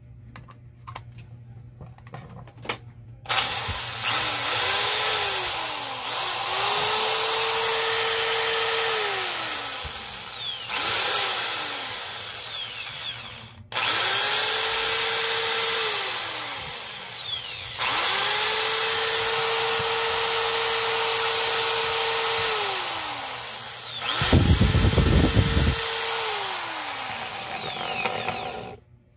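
Corded electric drill switched on and off about five times, its motor winding up to a steady high whine and then running down each time. The last, loudest run adds a low rattle. The drill is being test-run after a repair for losing power.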